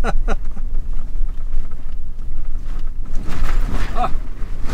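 Pickup truck driving over a rocky dirt road, heard from inside the cab: a steady low rumble of engine and tyres on rough ground, with a few brief murmurs of voice about three to four seconds in.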